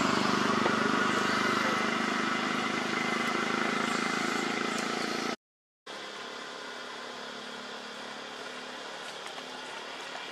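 A steady engine-like hum, fading slightly, breaks off in a short gap of silence about five seconds in; after it a quieter steady background hum continues.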